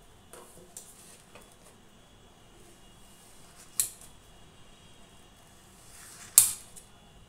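A table knife scraping and clinking against a stainless steel plate while cutting dried raw-mango papad. There are a few light ticks, then two sharp metallic clinks, one a little under four seconds in and a louder one near the end.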